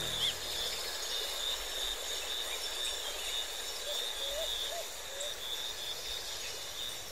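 Steady high-pitched buzz of insects such as crickets, with a few short faint chirps, as background music fades out about a second in.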